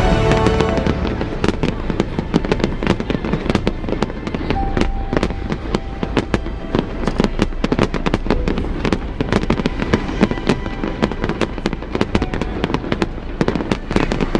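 Fireworks display: a rapid, continuous barrage of bangs and crackles. Music fades out in the first second.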